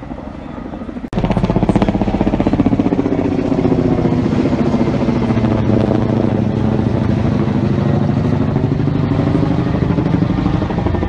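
A combustion engine running close by, starting abruptly about a second in and continuing steadily with fast, even pulsing and a slightly wavering pitch.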